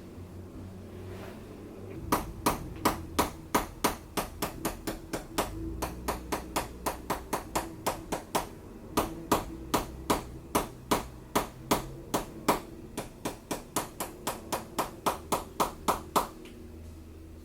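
Chiropractic adjusting instrument tapping on the patient's body: a long, even run of sharp clicks, about three a second, starting about two seconds in and stopping shortly before the end.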